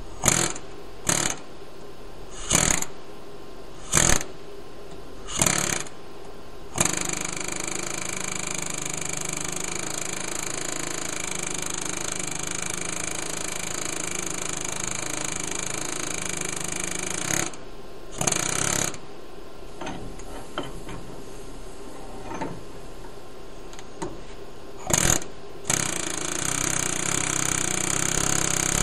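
Pneumatic air hammer with a blunt bit hammering on a bolt screwed into the end of a shaft, driving a keyed hub off. First several short bursts about a second apart, then long runs of continuous rapid hammering broken by brief pauses.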